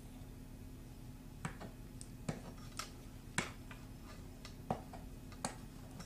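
Light, scattered clicks and taps, about eight of them spread over a few seconds, from handling wires and a soldering iron while tinning wires, over a faint steady hum.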